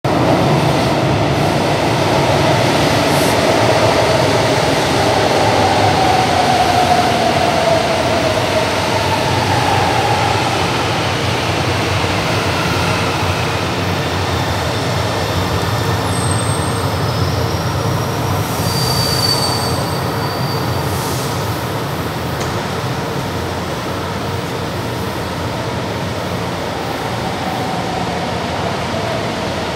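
A metro train pulling into an underground station and braking to a stop: the rumble of wheels on rail and the whine of its electric motors, with a few high squeals a little past halfway as the brakes bring it to a halt. The sound eases off near the end once the train has stopped.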